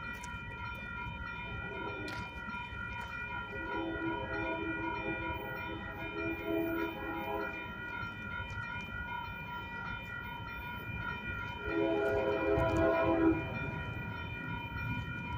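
Railroad crossing warning bell ringing steadily as the crossing gates come down. Over it, the horn of an approaching Union Pacific freight locomotive sounds: a fainter long blast about four seconds in and a louder one about twelve seconds in.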